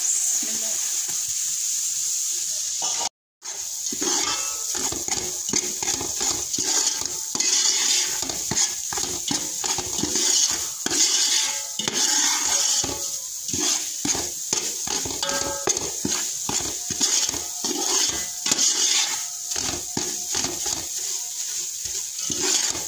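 Semolina sizzling as it is poured into hot oil in a steel pot, then, after a brief dropout about three seconds in, a metal spoon scraping and clinking against the pot as the semolina is stirred and roasted, with the sizzling going on underneath.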